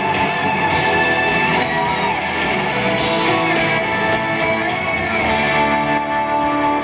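Live band playing loud rock music in an arena, heard from the audience.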